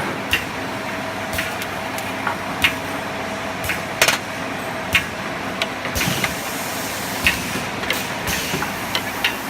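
MIC-PF30 automatic perfume bottle filling and crimping machine running: a steady mechanical noise with sharp clicks and clacks at irregular intervals, and a rush of hiss about six seconds in.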